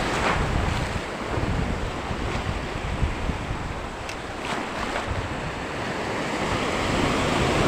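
Wind buffeting the microphone over the wash of sea waves: a steady, gusting rush of noise.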